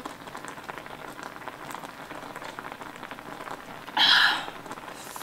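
Stew bubbling hard in an electric skillet, a steady patter of small pops, boiling vigorously enough that the heat needs turning down. A brief louder noise comes about four seconds in.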